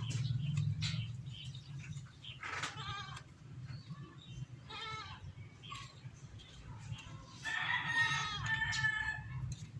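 Farm animal calls: a few short pitched cries, then one longer call near the end, over a steady low hum.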